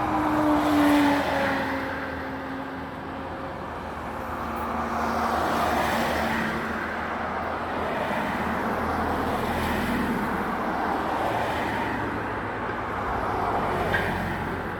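Road traffic passing: cars go by one after another in swells of engine and tyre noise. Near the start one vehicle's engine note falls in pitch as it goes past.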